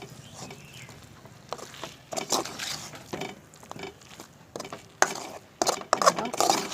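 A spoon stirring chicken roast in a pan, with irregular scrapes and knocks against the pan that get louder and more frequent near the end.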